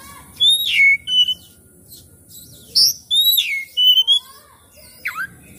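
Oriental magpie-robin singing loud, clear whistled phrases of falling notes and quick chirps, in three bursts with short pauses between.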